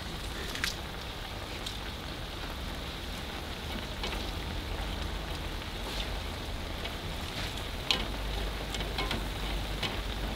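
Frog legs, sliced onion and spring onions sizzling in a wok, with a scatter of light clicks and taps from chopsticks stirring them.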